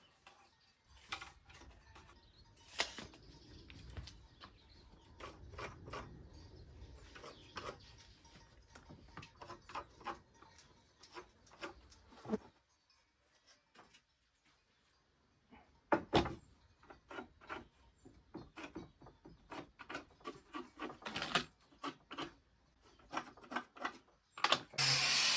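Wooden boards being handled and worked by hand: scattered clicks, knocks and rubbing, with a short pause about halfway through. A power tool starts up near the end and is the loudest sound.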